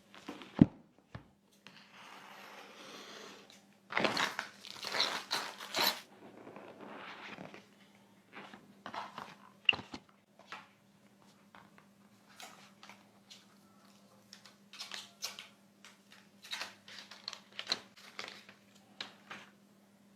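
Smartphone box and packaging being handled and opened. A sharp click comes right at the start, then a soft sliding hiss, then crinkling and tearing of packaging about four seconds in, followed by scattered light taps and clicks. A faint steady low hum runs underneath.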